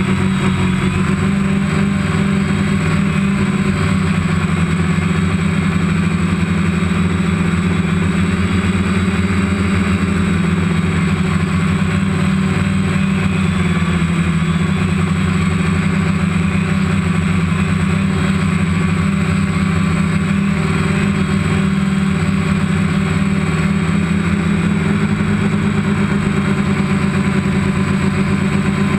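Multirotor drone's electric motors and propellers humming steadily, heard from the drone's own camera, with a few tones that shift slightly in pitch as it manoeuvres.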